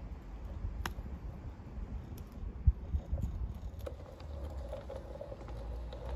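Garden-scale model train running on outdoor track: scattered light clicks of wheels and track, with a steady low rumble and a faint hum that comes in about four seconds in. A single sharp low thump about halfway through.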